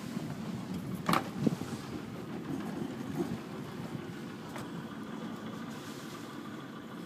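Jeanneau 57 sailing yacht's inboard diesel engine idling steadily, with two sharp knocks about a second in.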